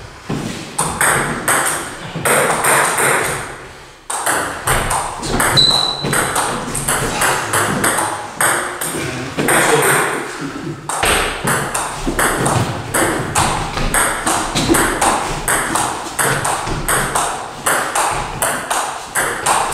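Table tennis rallies: a celluloid-type ball clicking off rubber-faced bats and bouncing on a JOOLA table, several rapid, irregular clicks a second, with a short pause about four seconds in.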